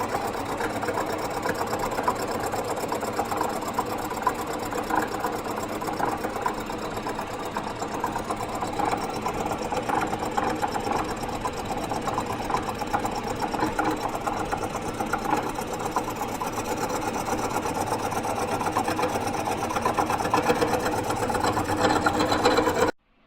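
Bridgeport milling machine head spinning a four-insert carbide face mill at 450 RPM, taking a light facing cut across a cylinder head's exhaust-port face with a steady, even machining sound. It cuts off abruptly near the end.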